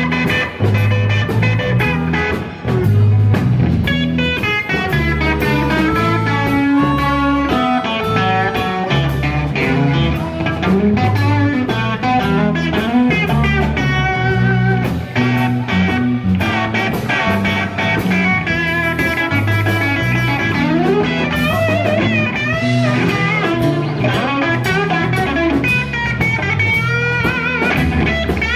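Live blues band playing: electric guitar, bass guitar and drum kit, with a harmonica played into a vocal microphone, its notes bending and wavering.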